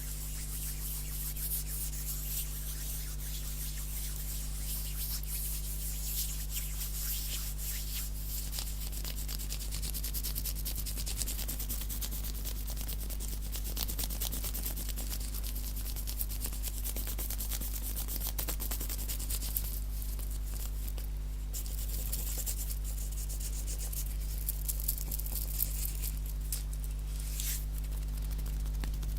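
Bare hands rubbing quickly against each other close to the microphone, a fast dry rustling that thins out briefly about two-thirds of the way through, over a steady low hum.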